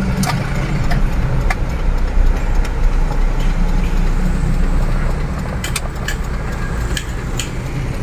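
Mitsubishi Canter truck's diesel engine running as the truck drives, heard from inside the cab as a steady low rumble, with a few scattered clicks.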